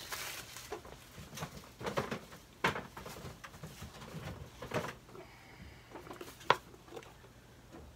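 Handling noise from unpacking: plastic wrapping rustling and a cardboard box being handled, with a few short light taps and knocks, the sharpest about two and a half, five and six and a half seconds in.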